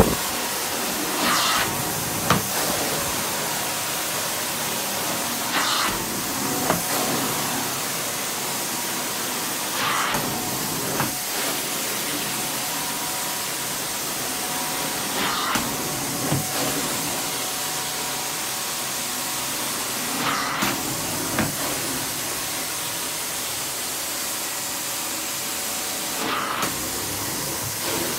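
Carpet steam-cleaning extraction wand in use: a steady loud suction hiss as it is drawn across the carpet, with a short surge and knock about every five seconds.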